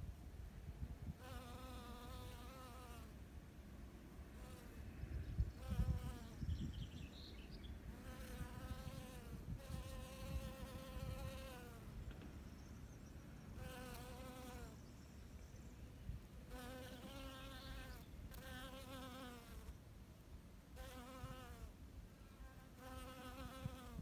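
Honeybee buzzing in flight, its hum coming and going in passes of a second or two and sliding slightly in pitch as it moves past.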